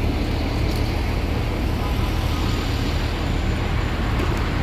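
City bus engine idling at the kerb, a steady low rumble, with street traffic noise.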